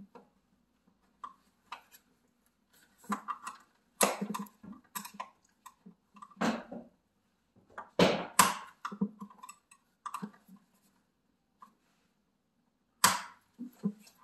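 Irregular clicks, knocks and clacks of a window-blind headrail being pried out of its bracket clamp with a butter knife, the loudest about four seconds in, twice about eight seconds in, and again near the end.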